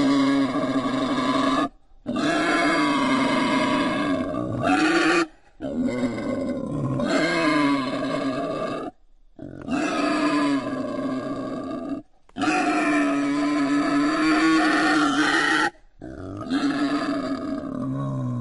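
Wild boar calling: drawn-out, pitched grunts in a run of spliced segments a few seconds long, each cut off abruptly by a brief silence.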